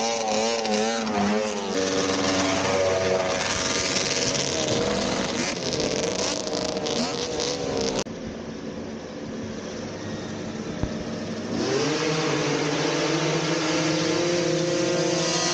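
Racing snowmobile engines running at high revs, their pitch wavering. About halfway through the sound suddenly drops quieter, then an engine revs up and holds a steady high note.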